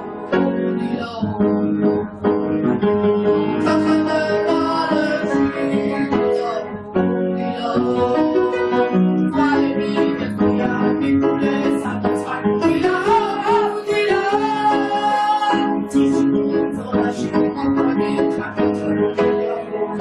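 Background music: a song with guitar and piano, and a voice singing over it.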